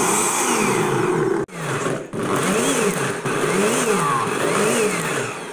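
Personal blender running with its cup pressed down on the motor base, chopping chunks of fruit into a purée. The motor's pitch rises and falls about once a second as the load changes, and it cuts out for a moment about one and a half seconds in before running on.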